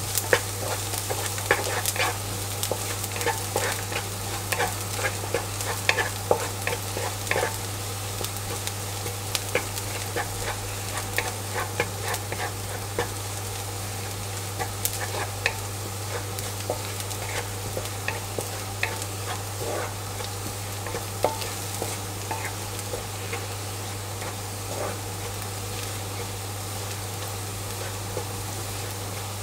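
Minced garlic sizzling gently in hot oil in a non-stick wok, stirred with a wooden spatula whose scrapes and taps on the pan come thicker in the first half and thin out later, over a steady low hum. The garlic is being fried until fragrant, not yet golden.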